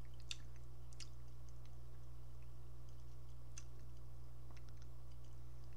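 Faint mouth clicks and lip smacks of a person sipping and tasting an energy drink, a few short clicks over a steady low electrical hum.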